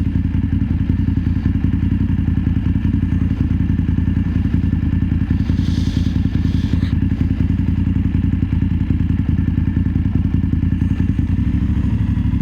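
BMW F 850 GS motorcycle's parallel-twin engine running steadily while riding along, its note shifting slightly near the end.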